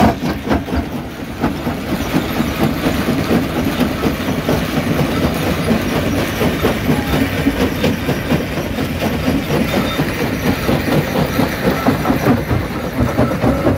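Stone jaw crusher running and crushing rock: a dense, continuous clatter of many small knocks and cracks over a steady low mechanical hum.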